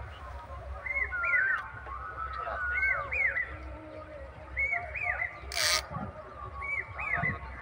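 A bird singing the same short phrase over and over, about every two seconds: two or three quick rising-and-falling whistled notes, then a lower drawn-out note. A brief rustling noise comes a little past halfway.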